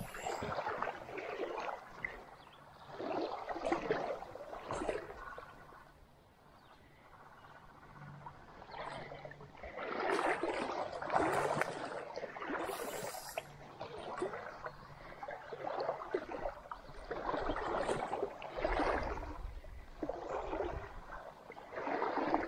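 Shallow creek water splashing and sloshing in irregular bursts every second or two, with a quieter lull partway through and a low rumble near the end.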